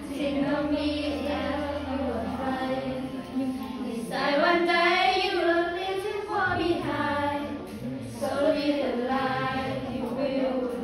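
Several teenage girls' voices singing a pop song together in English, with long held notes.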